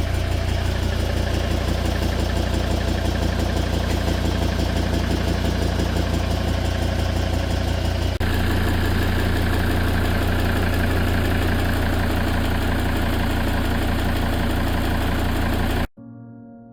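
Volvo D5 five-cylinder diesel engine idling steadily, in two takes joined about eight seconds in; it stops abruptly near the end as soft music comes in.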